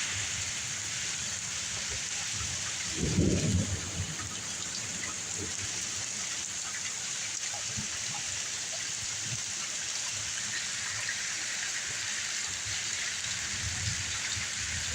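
Steady rain falling, with a brief low rumble about three seconds in.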